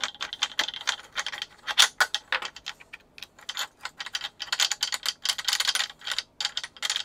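Rapid, irregular small metallic clicking and rattling as a screw is backed out of a stringing machine's turntable with a T-handle 6 mm hex wrench, then lifted out with its washers by hand.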